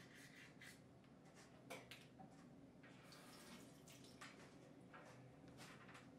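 Very faint toothbrushing: short brushing strokes. Then a little dripping water at the bathroom sink as she leans down over it.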